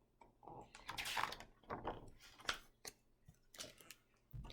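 Faint scattered clicks and brief light rustles of handling noise.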